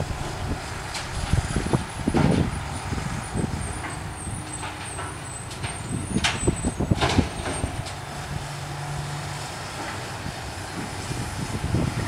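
Diesel excavator with a thumb running as it works broken asphalt, its engine a steady drone. Over the drone come sharp knocks and clanks of asphalt and steel, the loudest about two seconds in and again around six and seven seconds.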